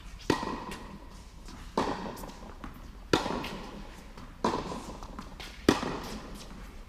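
Tennis balls struck back and forth in a rally: five sharp racket-on-ball pops a little over a second apart, each followed by an echo through the large indoor tennis hall.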